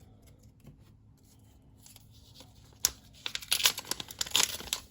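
Wrapper of a trading-card pack crinkling and tearing as it is opened, starting with a sharp click about three seconds in after a quiet start.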